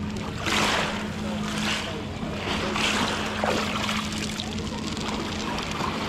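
Small sea waves washing up over a pebble beach and running back through the stones, in several surges a second or so apart; the strongest comes about half a second in. A steady low hum runs underneath.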